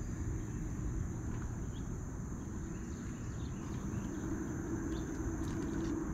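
Outdoor ambience at the water: a steady, high insect trill over a low rumble of wind and distant road traffic. A low hum grows louder about four seconds in.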